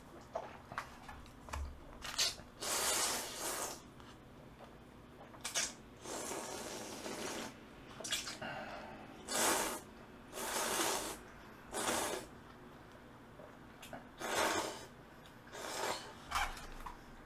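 Noodles from a bowl of jjamppong, a spicy seafood noodle soup, slurped up by mouth, a dozen or so times. Some slurps are quick and some are drawn out over a second.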